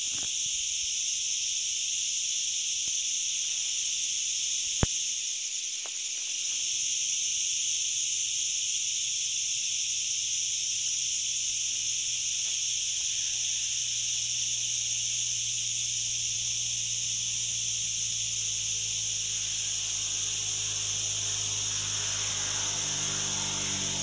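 Dense, steady chorus of insects shrilling in pine trees, a high unbroken buzz, which the title names as crickets. A single sharp click comes about five seconds in, and a low rumble builds under the chorus in the last few seconds.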